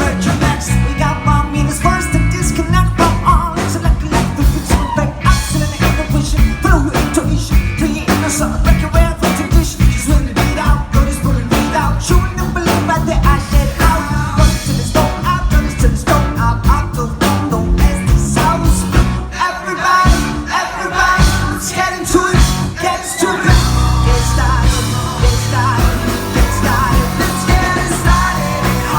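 Live band music, a loud rock-style song with singing over a steady drum beat. The bass thins out for a few seconds past the middle, then comes back heavy.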